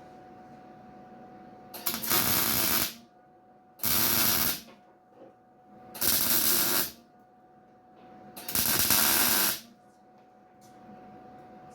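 MIG welder laying four short tack welds on sheet-steel tailgate patch panels, each arc a crackling hiss of about a second, roughly two seconds apart. A steady thin hum runs underneath.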